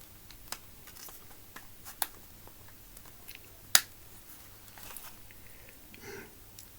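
Scattered small clicks and taps from handling a BB pistol's parts, with one sharp click a little past the middle.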